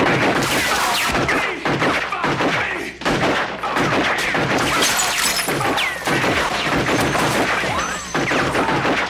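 Action-film soundtrack: a rapid run of gunshots, heavy thuds, crashes and smashing glass, with music underneath.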